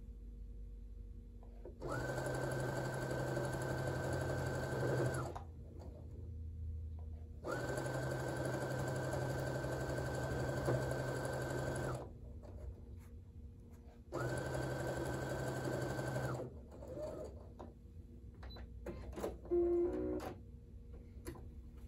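Brother electric sewing machine stitching a quilt seam in three steady runs of a few seconds each, stopping briefly between them. A few light clicks follow near the end.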